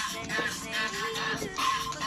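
A Tagalog pop love song playing in the background, with a sung melody over the accompaniment.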